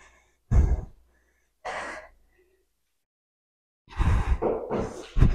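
A woman's heavy breathing between exercises: short, sharp exhales and gasps, then about two seconds of quiet, then a louder run of breaths near the end.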